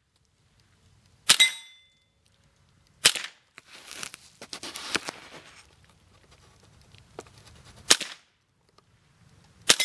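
Four single .22LR shots from an AR-15 (Smith & Wesson M&P15 Sport) fitted with a CMMG .22LR conversion kit, with uneven gaps between them. The first and last shots are each followed by the brief metallic ring of a hit steel target.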